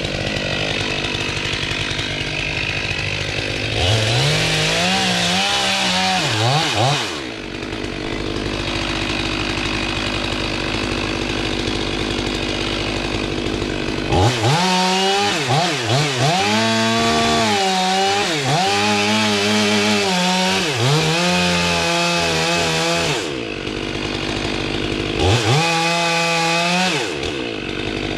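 Stihl two-stroke chainsaw idling, then opened up to full throttle three times: briefly about four seconds in, for a long cut of about nine seconds in the middle, and briefly near the end. Under full throttle the engine pitch keeps dipping and recovering as the chain bogs in the wood, and it drops back to idle between cuts.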